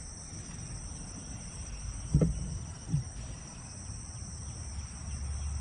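A steady high insect chorus of crickets, over a low rumble. About two seconds in come two dull thumps, the second about a second after the first.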